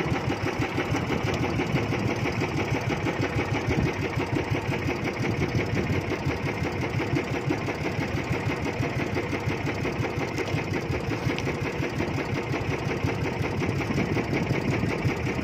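Small fishing boat's engine running steadily at speed, a fast even putter with no change in pace.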